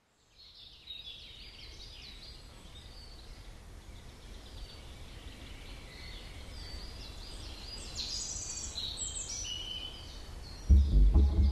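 Many birds chirping and singing over a low steady rumble, the whole soundscape slowly growing louder. Near the end, loud electronic music with a heavy beat cuts in.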